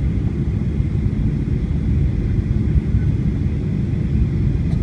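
Steady low rumble of airliner cabin noise, heard from a passenger seat as the plane comes in to land.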